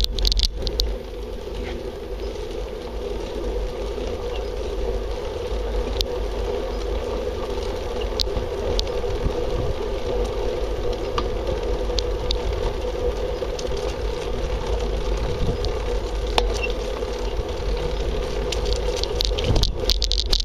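Steady rolling hum and light rattle of a wheeled ride moving along a tarmac path, with low wind rumble on the microphone and a few faint clicks.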